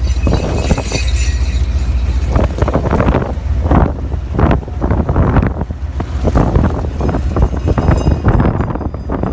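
Wind buffeting the microphone in gusts through the open window of a moving vehicle, over a steady low road and engine rumble.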